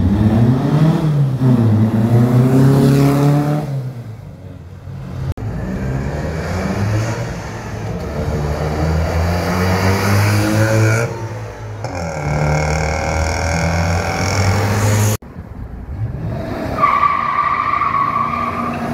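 Classic cars driving past one after another, their engines revving and rising in pitch as each pulls away, the sound broken off by several abrupt cuts. Near the end a steady high tone sounds for about two seconds.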